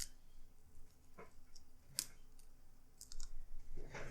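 A few separate sharp clicks and taps of small plastic laptop parts and tools being handled, roughly a second apart, with a quick cluster of clicks near the end.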